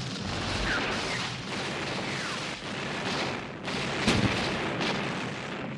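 Battle soundtrack of a muzzle-loading field cannon firing amid a continuous din of gunfire, with a sharp shot about four seconds in.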